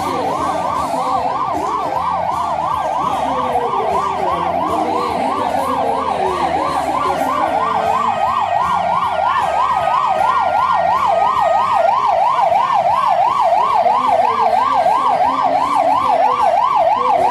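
An electronic siren in a fast yelp, its pitch sweeping up and down about three times a second, evenly and growing a little louder toward the end.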